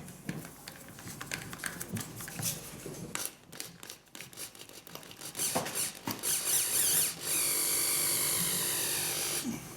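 Scattered clicks and scraping of hand work on an aerated concrete block, then a cordless drill speeds up about six seconds in and runs steadily for about two seconds before stopping shortly before the end.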